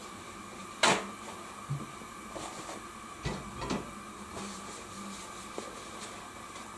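Pot of shijimi clams boiling under a glass lid: a steady hum with a scattering of sharp clicks and knocks, the loudest about a second in.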